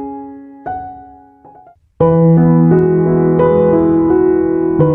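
Background piano music: soft notes fade away, a brief gap comes about two seconds in, then a louder, fuller piano passage starts.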